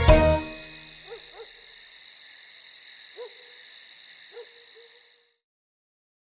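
Cartoon night-time sound effect: an owl hooting four short times, two close together and then two single hoots, over a steady high, fast-pulsing cricket trill. Both cut off together about five seconds in.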